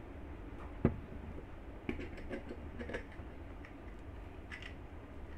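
Light plastic clicks and taps of a smartphone mount being fitted onto a Manfrotto Pixi Mini tripod. There is one sharper knock about a second in, then a quick cluster of small clicks, and two or three more near the end.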